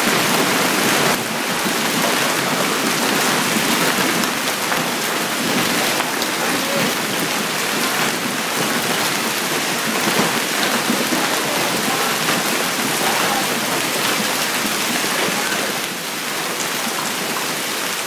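Heavy hailstorm: hailstones and rain pelting the pavement and parked cars, a dense steady clatter of countless small impacts that eases slightly near the end.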